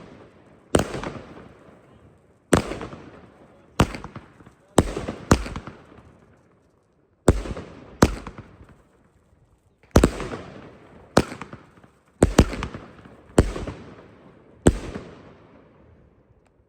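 Argento 'Akira' firework firing a string of about a dozen loud bangs, spaced unevenly one to two seconds apart, each trailing off over a second or so.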